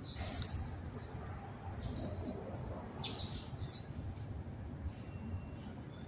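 House sparrows chirping: several short, high chirps, some in quick clusters, over a steady low rumble.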